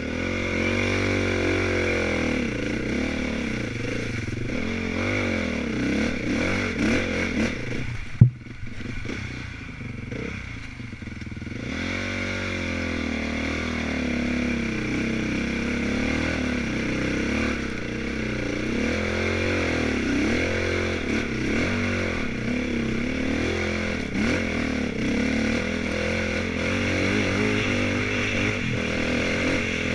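Off-road dirt bike engine running under constantly changing throttle, its pitch rising and falling as it rides the trail. There is a single sharp knock about eight seconds in, and the engine eases off for a few seconds before pulling again.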